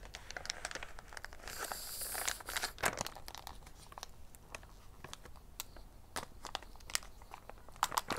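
Clear plastic film wrapper of a mochi roll tray crinkling and tearing as it is pulled and bitten open. Scattered crackles, a longer tearing stretch about two seconds in, and sharper snaps around three seconds and near the end.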